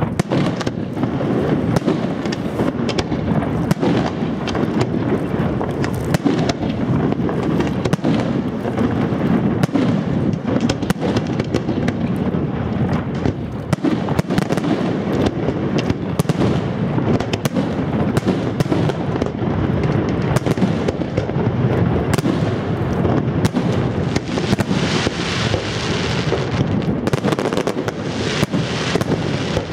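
Fireworks display: a dense, continuous run of bangs and booms from aerial shells and batteries, with no break. About three-quarters of the way through, a stretch of high hissing crackle rises over the booms.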